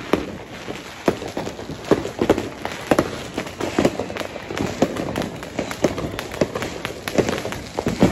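Street fireworks and firecrackers going off in a rapid, irregular string of bangs and pops, a few each second.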